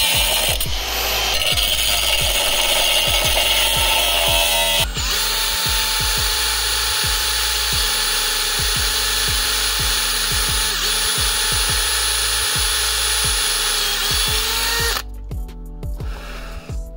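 Makita angle grinder cutting through a steel frame for about the first five seconds, then a cordless drill boring steadily into a stone until a couple of seconds before the end, when it stops. Background music with a steady beat runs underneath.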